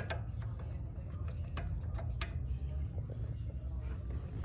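Hand wrench working on a Nissan 350Z's rear CV axle flange bolts: a few scattered light metallic clicks and knocks, mostly in the first half, as a stuck bolt is worked loose, over a steady low rumble.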